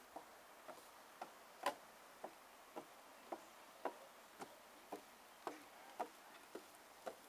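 Faint footsteps on the planks of a wooden footbridge, a short click about twice a second at an even walking pace.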